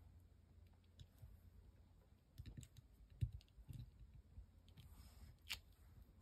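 Faint scattered clicks and soft taps of an acrylic stamping block being pressed down on paper and lifted off, with a sharper click about five and a half seconds in.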